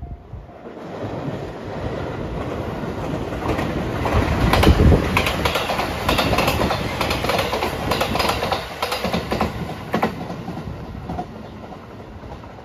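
Rapid Marine Liner electric multiple-unit train passing close by. The running noise builds, the wheels click repeatedly over rail joints loudest in the middle, and then it fades as the train moves away.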